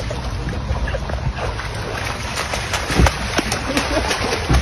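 Splashing in shallow flood water on tarmac as a person wades in and flops onto it belly first, with a quickening run of sharp splashes and a heavier thump about three seconds in.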